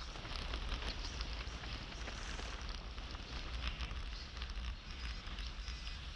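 Velomobile rolling along an asphalt road: a steady crackling hiss of tyres on the road surface with low wind rumble on the microphone.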